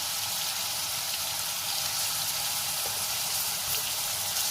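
Chicken pieces sizzling steadily in hot oil in a pan as they shallow-fry, with a few faint crackles.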